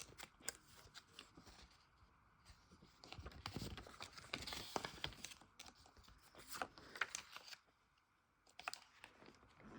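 Faint handling noises from a VHS tape and its case: scattered small clicks and rustling.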